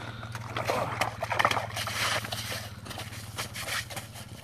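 A northern pike splashing in an ice-fishing hole and flapping on the snow as it is lifted out by hand: a run of irregular wet splashes and slaps, loudest about one to two seconds in.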